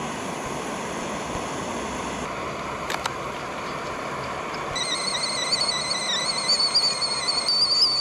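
Stainless-steel camping kettle on a canister gas stove, whistling at the boil: a high, slightly wavering whistle starts about five seconds in and grows louder, over the steady hiss of the burner.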